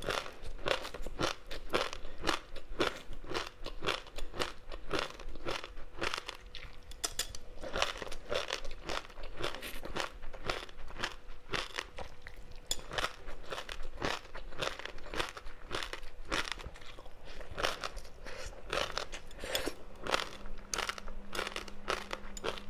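Close-up eating sounds: steady crunching and chewing of crispy seaweed-wrapped rice, many crisp crackles a second.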